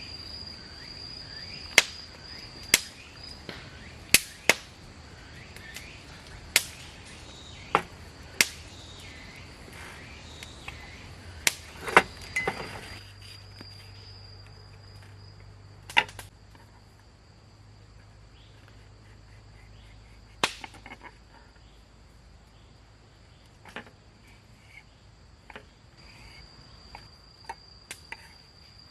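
Crickets chirring steadily, with sharp pops from a wood campfire at uneven intervals, more of them in the first half.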